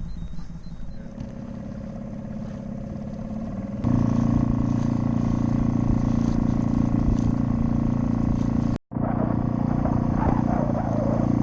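A yacht's engine running steadily while motoring, a low even hum that gets clearly louder about four seconds in and cuts out for an instant near nine seconds.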